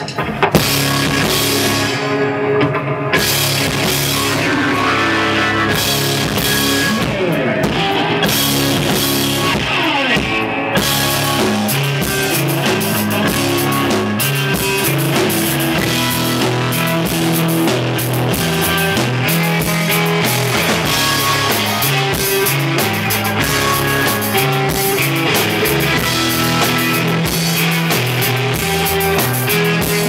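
A live rock band playing loud and steady, with electric guitars over a drum kit.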